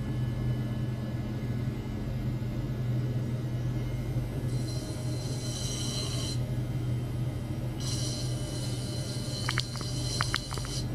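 Steady low hum from running bench equipment. Twice it is joined by a few seconds of high-pitched hissy buzz, and a few short clear high tones sound near the end.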